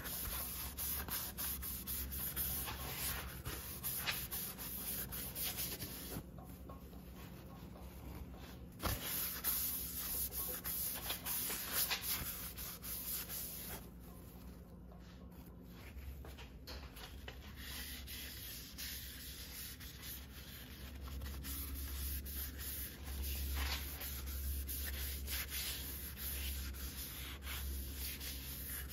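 Rubbing and scraping from hand work on engine parts during an engine rebuild, coming in uneven stretches over a steady low hum.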